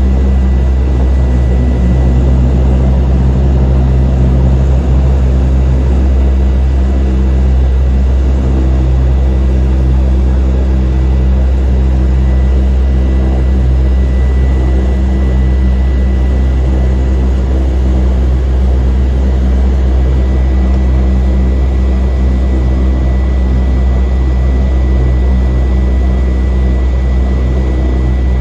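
Cabin noise of a Cessna 208 Caravan in flight: its Pratt & Whitney PT6A turboprop engine and propeller give a loud, steady drone with a thin, high steady whine over it, heard from inside the cabin.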